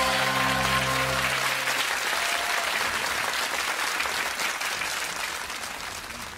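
Background music holding its last chord, which gives way about a second and a half in to applause that slowly fades out.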